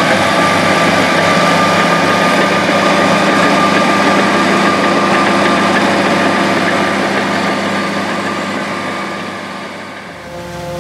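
Caterpillar crawler dozer's diesel engine running steadily under load as it tracks over and packs chopped corn silage, with a steady whine above the engine note. The sound fades down near the end.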